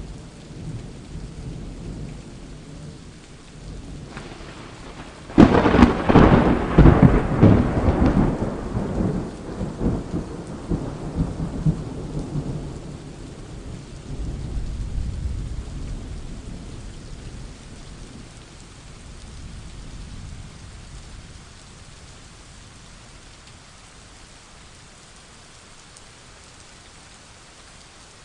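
Thunderstorm with steady rain. About five seconds in, a sudden close thunderclap cracks and crackles, then rolls into rumbling that dies away over several seconds. A second, lower rumble follows, and after that only the rain is heard.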